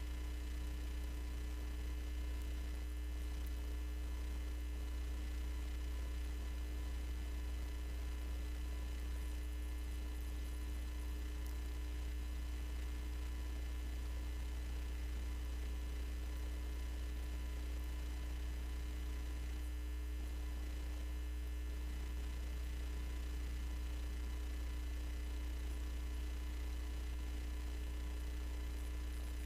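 Steady low electrical hum with faint hiss and a few thin constant tones above it, unchanging in level.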